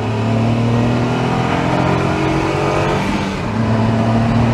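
Honda S660's mid-mounted 658cc turbocharged three-cylinder engine pulling at steady revs, heard from inside the cabin; it eases off briefly about three seconds in, then pulls again.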